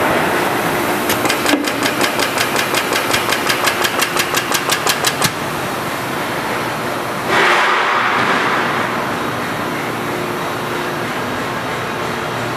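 Industrial machinery running steadily, with a fast, even clicking of about five strokes a second for around four seconds. About halfway through, a sudden hiss rises and fades over a couple of seconds.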